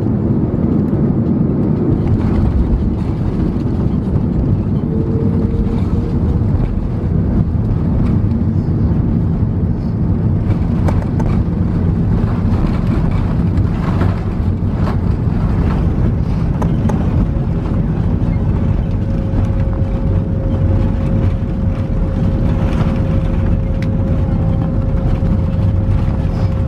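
Cabin noise of an Airbus A330-300 on its landing rollout: a loud, steady rumble from the engines and the wheels on the runway, with the thrust reversers deployed as it slows. A run of rattling clicks comes in the middle, and a steady whine starts about two-thirds of the way through.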